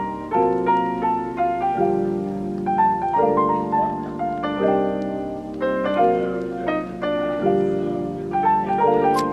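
Background music: a gentle piano-and-harp style melody of plucked notes over held chords.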